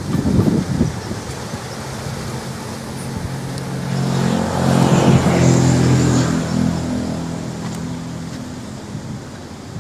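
Engine of a passing motor vehicle: a low, steady engine note that grows louder to a peak about five seconds in, then fades away.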